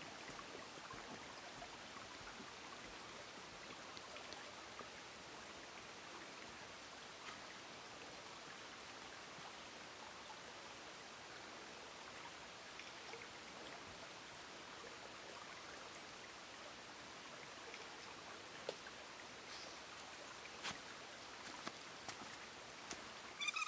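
Faint, steady rushing hiss of forest ambience, with a few soft footsteps on leaf litter in the last few seconds as a hiker walks past.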